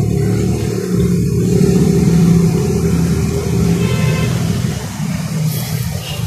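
An engine running steadily, growing a little louder about two seconds in and easing off near the end.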